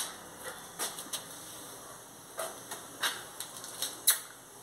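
A few light, scattered taps and clicks, about five spread over the few seconds: footsteps on bare concrete stairs.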